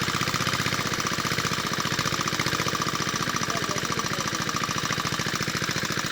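Small engine running steadily with a fast, even chugging beat.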